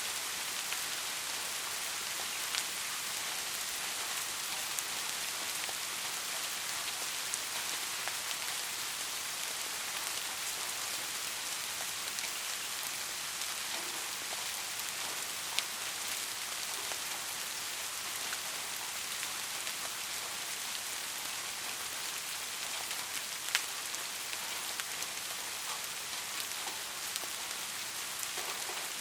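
Steady rain falling in an even hiss, with a few single drops striking close and sharp now and then.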